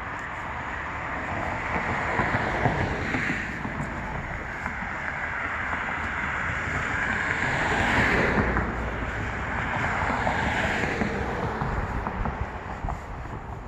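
Road traffic passing by: vehicles' tyre and engine noise swelling and fading, loudest about two and a half, eight and ten and a half seconds in, with wind buffeting the microphone.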